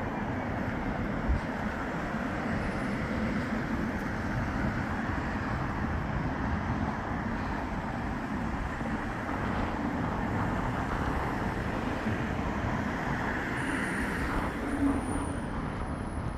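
Steady road traffic noise, a continuous even hum of cars passing, with a faint high whistle near the end.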